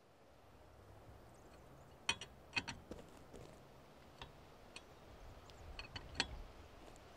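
Sharp metallic clicks and clinks, about seven of them scattered over a few seconds, from lug nuts being worked by hand on a car wheel while a flat tyre is changed.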